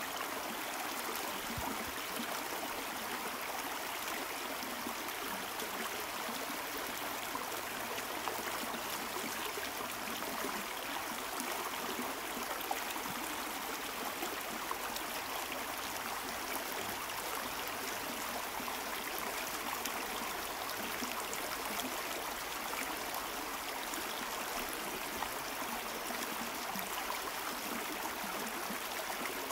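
A small river running steadily, an even rush of flowing water.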